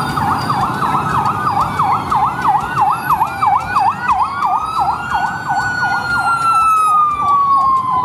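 Two ambulance sirens sounding together. One runs a fast yelp, sweeping up and down about three or four times a second. The other is a slow wail that joins a few seconds in, rises, then falls away, over the low noise of street traffic.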